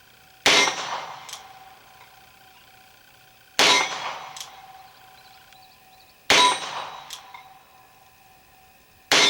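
A Colt New Police revolver in .32 Colt New Police (.32 S&W Long) firing four shots with target wadcutters, about two and a half seconds apart. Each shot is followed by a long metallic ringing, as of a steel target being hit, which hangs on between shots.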